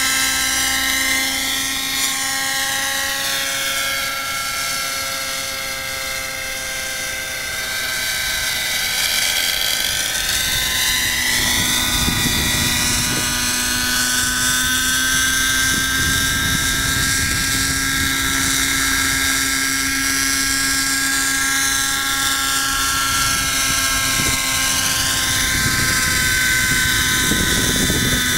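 X-Cell 90 RC helicopter in flight: its two-stroke model engine runs with a steady high whine along with the rotor, the pitch drifting up and down as it manoeuvres. It dips a little in loudness about a quarter of the way in, then grows louder, with a low rumble added, as the helicopter comes lower and closer.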